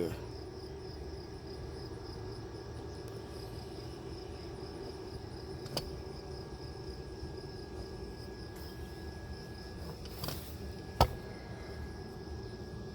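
Crickets chirping steadily over the even hum of a MIG welder's cooling fan. A sharp click about 11 seconds in, with fainter ones near 6 and 10 seconds.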